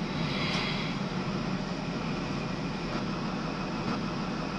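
Steady running noise inside the cab of a Class 43 HST power car on the move: diesel engine and wheels on rail, with a brief hiss in the first second.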